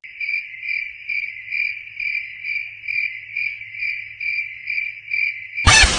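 Crickets chirping: a clean, steady high trill pulsing evenly about twice a second, the comic 'awkward silence' sound effect. It cuts off abruptly near the end as a loud sudden sound breaks in.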